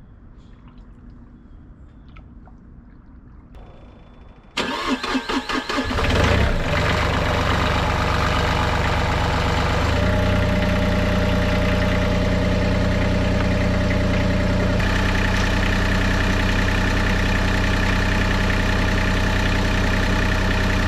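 Cat 303 CR mini excavator's diesel engine cranked by its starter about four and a half seconds in, catching after a second or so and then running steadily, its note changing twice as the speed settles. It is the first run after a water pump replacement and coolant refill.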